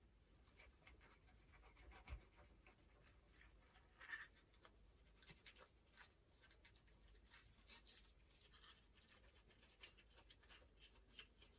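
Faint rubbing and light scratching of a paper tissue wiping a lens cap, with scattered small clicks as the cap is handled and a slightly louder rub about four seconds in.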